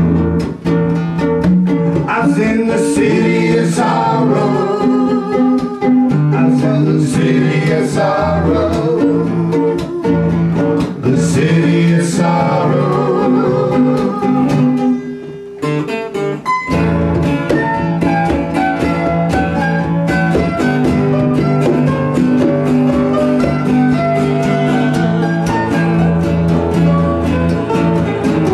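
Small band playing live: strummed acoustic guitars and hand-played congas with singing. The music drops out briefly about halfway through, then carries on.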